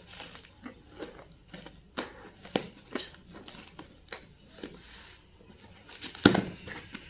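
Scissors cutting through packing tape on a cardboard parcel: scattered crackles and clicks of tape and cardboard, then a loud tear about six seconds in as the box is pulled open by hand.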